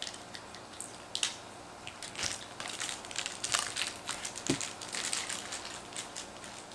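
Crinkling of a clear plastic wrapper and light clicks of small plastic toy pieces being handled, irregular and getting busier about two seconds in.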